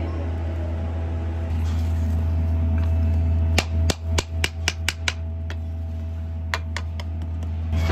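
Hand hammer striking a fresh metal casting on a sand floor: a quick run of about seven sharp strikes a few seconds in, then four more near the end. A steady low hum runs underneath.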